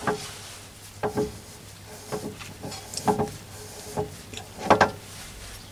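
Collet chuck on its cast backplate being turned by hand to unscrew it from a Myford ML7 lathe spindle nose: short metallic clicks and rubbing, about one a second, each with a brief ring.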